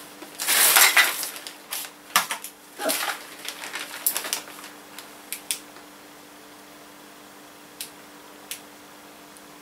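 Small hard plastic bicycle-lamp parts and mounting brackets clattering and knocking together on a worktop in irregular bursts through the first half. Then two light clicks near the end, as of the lamp's push button being pressed, over a faint steady hum.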